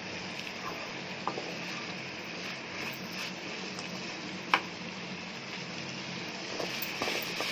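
Onion-tomato masala sizzling in oil in a pan while it is stirred, with a spoon knocking against the pan a few times, the loudest knock just past the middle.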